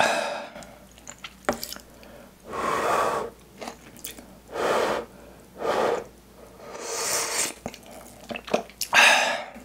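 Hot fish cake broth slurped from a wooden ladle: a series of loud slurps, one every second or two, with faint clicks of the ladle between them.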